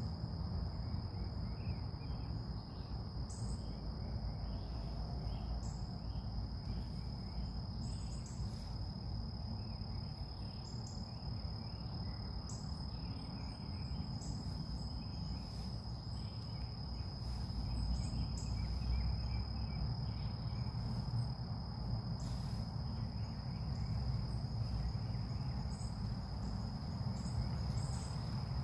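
Insects, likely crickets, trilling one steady high-pitched note without a break, with faint short chirps above it and a low rumble of wind on the microphone.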